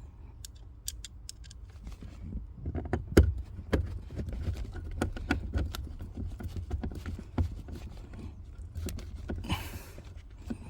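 Scattered clicks and knocks of a car's door sill plate and its plastic clips being pressed and snapped into place, with one sharper knock about three seconds in, over a steady low rumble.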